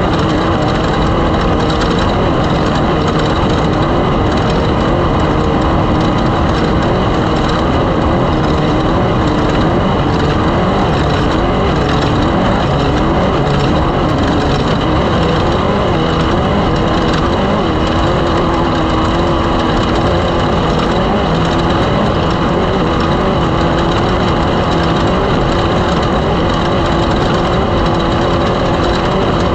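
Off-road race car engine running continuously, its pitch rising and falling with the throttle.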